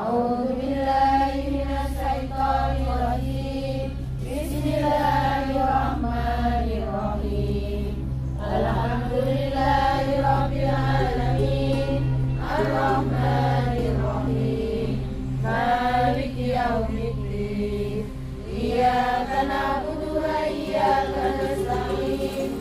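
A group of women chanting Islamic prayers in unison, in long melodic phrases with short breaks between them, over a steady low hum.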